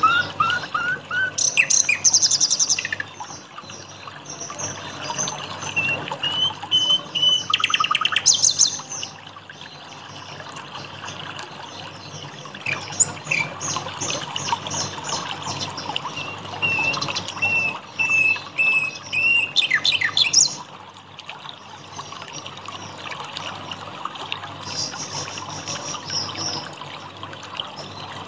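Songbirds chirping and singing in quick repeated notes and whistled phrases over steadily trickling water. The calls are thickest in the first half and thin out in the last third, leaving mostly the water.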